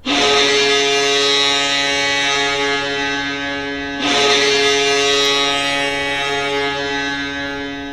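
Boston Bruins goal horn: two long, steady blasts of a low horn sounding several notes at once, the second starting about four seconds in.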